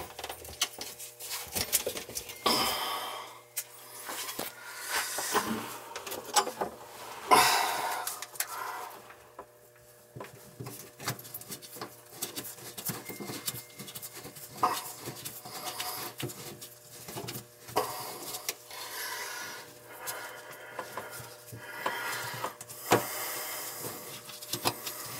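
White plastic PVC drain fittings being handled and fitted together under a sink: irregular clicks, knocks and scraping of plastic parts as the tailpiece and slip nut are worked onto the sink's basket strainer.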